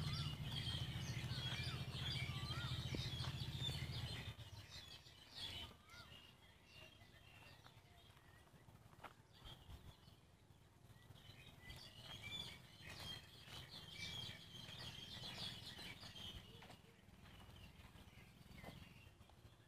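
Faint birdsong: many small chirps and short whistled calls. A low steady hum sounds for the first four seconds and then stops, and a few faint clicks come and go.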